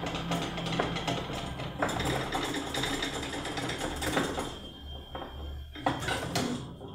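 Stepper motors turning lead screws to home the 3D printer's Z axis, driving the heavy upper frame down on drawer-slide rails with a rough, rattling run. The roughness comes from the frame moving stiffly on its many rails, which the builder had feared overconstrained it. The running dies away about four and a half seconds in, followed by a few knocks.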